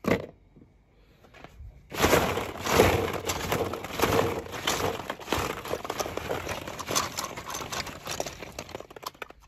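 A plastic toy monster truck clacks once into a plastic bowl. From about two seconds in, hollow plastic ball-pit balls rustle and clatter steadily as a hand digs through them.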